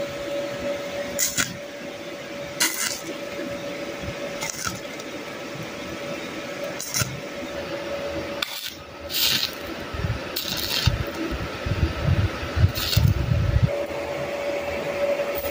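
Stick welding on thin 3x3 cm square hollow steel tube at low current, about 25–30 amps: a steady arc crackle, broken by short sizzling bursts as the electrode strikes and lays tack welds. Some low thumps come near the end.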